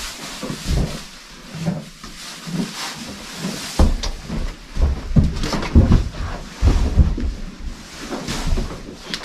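Irregular knocks, thumps and rustling, with the low thumps coming thicker and heavier from about four seconds in.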